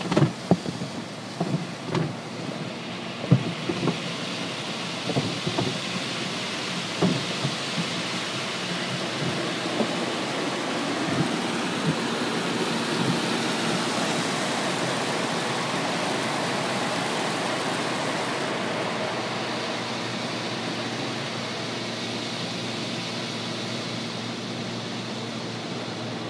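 Automatic car wash heard from inside the car: for the first several seconds cloth wash strips slap and thump against the body and glass, then a steady rushing noise of spray over the car swells and slowly eases.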